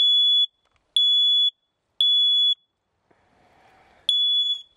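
Photoelectric smoke alarm sounding on its test button: three loud, high-pitched half-second beeps about a second apart, a pause, then the three-beep pattern starting again. This is the standard temporal-three evacuation pattern and shows that the alarm works.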